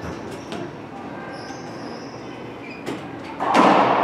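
Racquetball play in an enclosed court: faint ball bounces and shoe squeaks on the hardwood floor, then about three and a half seconds in a loud serve, the racquet striking the ball and the ball hitting the walls, echoing around the court.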